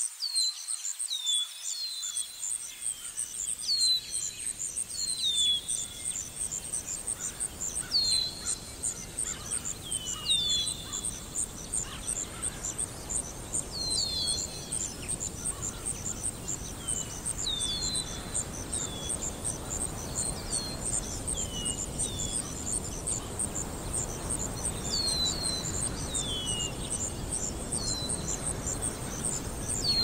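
Nature ambience: crickets chirping in an even, pulsing high trill, with many short, falling bird chirps scattered over it. Under them, a low rushing noise fades in over the first couple of seconds and then holds steady.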